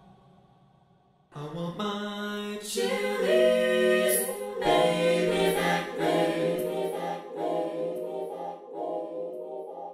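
Wordless a cappella singing: several voices holding sustained chords in harmony. It comes in suddenly about a second in and moves through a few chord changes.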